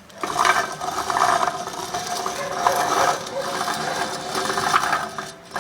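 Failed wheel bearing in the rear hub assembly of a 2003 Ford Explorer, turned by hand and giving a continuous rough mechanical grind that starts just after the beginning and stops near the end: the sign of a worn-out bearing.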